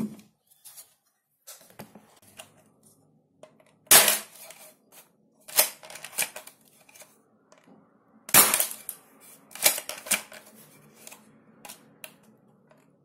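A homemade spring-powered airsoft mini rifle, with its spring cut in half and a shortened piston, being test-fired. There are four sharp shots at uneven intervals, the first about four seconds in, with fainter clicks between them.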